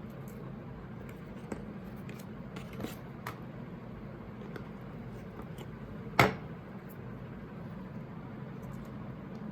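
Hands handling an iPad box and its packaging: scattered small clicks and taps, with one sharp click about six seconds in, over a steady low hum.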